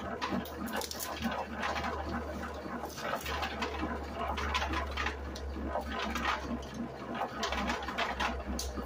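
Electric pea sheller running with a low steady hum while purple hull pea pods are fed into it, the pods crackling and rattling irregularly as they are shelled.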